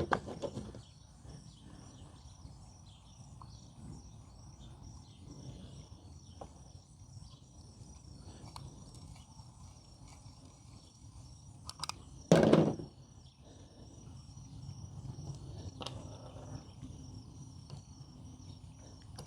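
Quiet scraping and small clicks of a coax stripping tool being worked around RG400 coax cable, with one short, louder clunk about 12 seconds in. Faint cricket chirping runs underneath.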